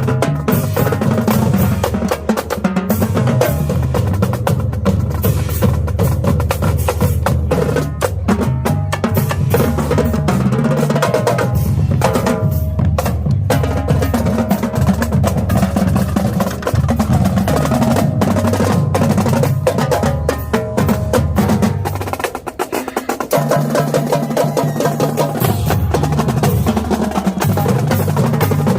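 High school marching drumline playing a fast, dense cadence of snare drums rolling over pounding bass drums. The bass drums drop out for about a second roughly three quarters of the way through, then come back in.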